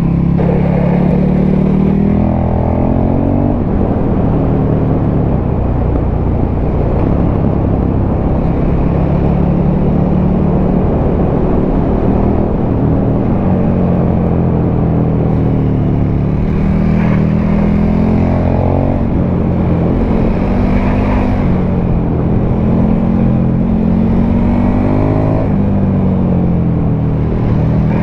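KTM 1290 Super Duke R's V-twin being ridden through an Akrapovic titanium slip-on exhaust, its pitch climbing and dropping again and again as it accelerates, shifts and backs off, over steady wind noise.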